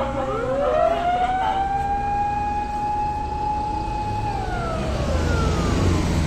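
Fire engine siren winding up, holding one long steady wail for about three seconds, then falling away near the end, over the low rumble of the truck's engine.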